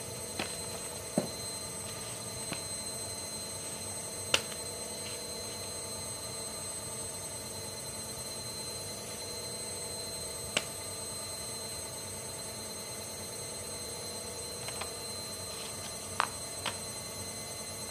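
Steady background hiss with a faint high whine, broken by a few short, sharp clicks and taps of fidget toys being handled on a paper board. Near the end, two clicks come close together as a finger presses the bubbles of a silicone pop-it.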